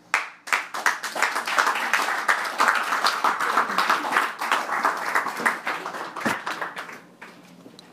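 Audience applauding: a burst of hand claps that starts suddenly, holds for several seconds and then thins out and dies away near the end.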